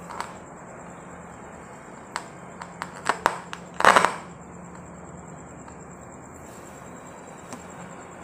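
A few light clicks and taps, then a short clatter about four seconds in, as a smartphone is handled and set down on a tabletop.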